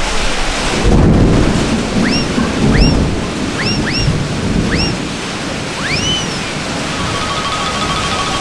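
Heavy rain pouring down steadily, with low rumbles of thunder about one and three seconds in. A string of short chirps, each rising sharply then falling, cuts through between about two and six seconds, and a fast-pulsing tone sounds near the end.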